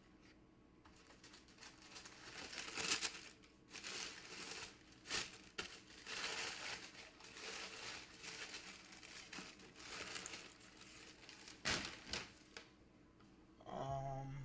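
Paper packaging crinkling and rustling in uneven bursts, with some tearing, as a package is unwrapped. A brief voice sounds near the end.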